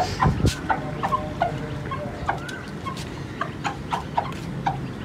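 Chickens clucking in short, repeated calls, a few each second, with light clicks and taps among them. A couple of low thumps come at the very start.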